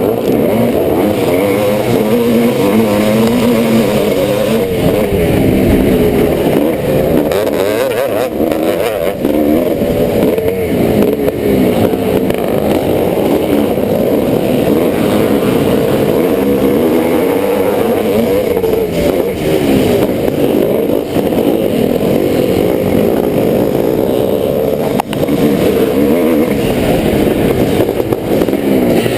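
1986 Yamaha YZ490's single-cylinder two-stroke engine racing at full load, its pitch rising and falling over and over as the throttle is opened and closed.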